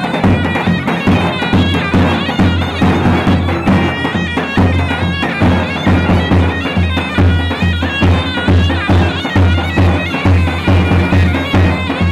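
Loud traditional Kurdish dance music: a shrill, reedy wind melody over a steady, driving drum beat.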